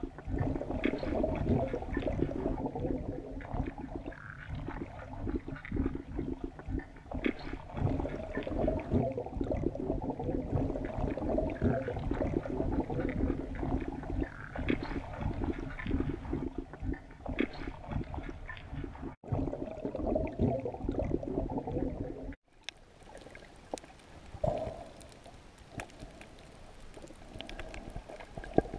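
Muffled gurgling and bubbling of water picked up by a camera underwater, with a low rumble. It drops out briefly twice, about 19 and 22 seconds in, and is quieter after the second break.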